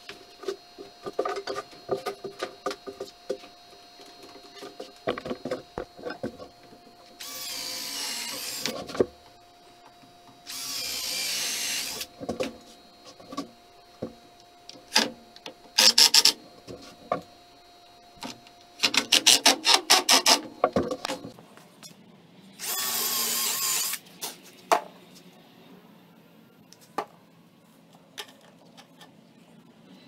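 Cordless drill whirring in three short bursts while driving screws into a wooden birdhouse base, with two runs of rapid clicking between the bursts. Scattered knocks of wood and clamp handling, mostly in the first few seconds.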